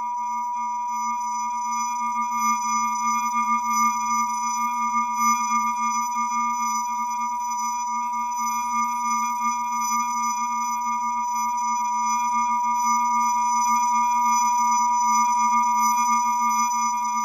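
A steady electronic tone: several pure pitches held together without a break, the strongest a high whistle-like pitch with a lower hum beneath. It swells a little toward the end.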